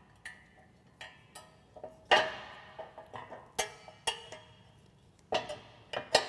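Pliers and a steel coil spring clinking against the steel plow frame as the spring is hooked onto the blade angle arm: a dozen or so irregular metallic clinks, each ringing briefly, the loudest about two and three and a half seconds in.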